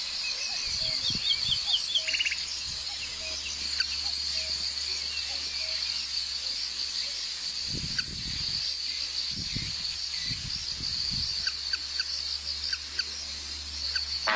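Outdoor ambience: insects trilling in a steady high drone, with scattered short bird chirps and a few low rumbles past the middle.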